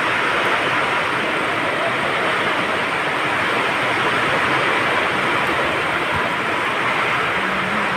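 Heavy rain pouring steadily, with wind blowing: an even rushing hiss.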